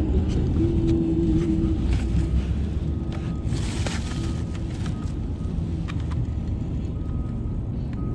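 Steady low engine rumble, like a boat motor running, with a few light clicks and a brief hiss about halfway through.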